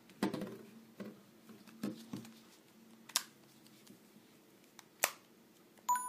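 Plastic phone body being handled and its swivel section twisted: a run of small knocks and sharp clicks, about seven in all. A short electronic beep follows right at the end.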